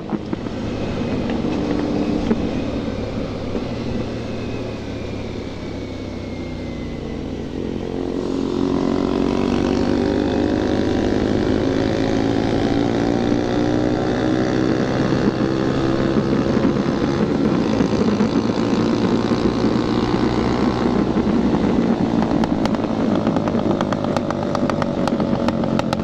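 Sport motorcycle engines with aftermarket full exhaust running at highway speed, with heavy wind rush. The revs drop over the first few seconds, then climb steadily from about eight seconds in and hold high to the end.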